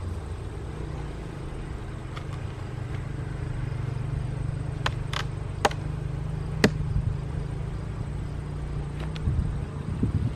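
Steady low hum of honeybees around an open hive, with a few sharp clicks and knocks in the middle and some bumps near the end as the stuck hive boxes are worked apart.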